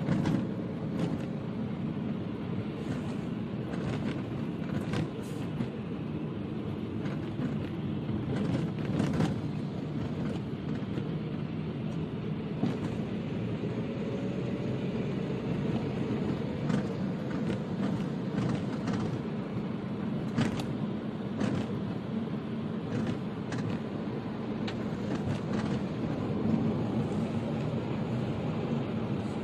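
Steady road and engine noise heard inside a moving car's cabin, a low even rumble with scattered light clicks.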